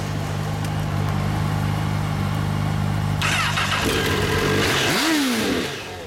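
Honda CBR1000RR's inline-four engine idling steadily, then blipped once about four seconds in, its note rising and falling in pitch.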